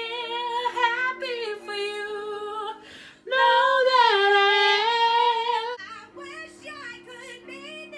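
A woman singing along loudly with a song playing in the room, over steady backing chords. About three seconds in she holds one long, loud note for over two seconds.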